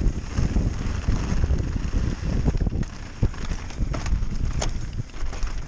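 Wind buffeting the microphone during a fast mountain-bike descent, with the rattle and knocks of the bike over rough ground, a few sharp clicks standing out.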